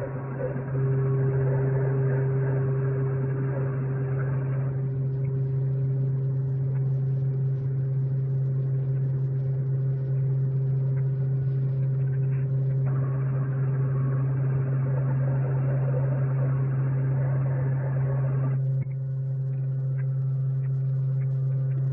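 A steady low hum with a fainter higher tone above it, holding even and unchanging.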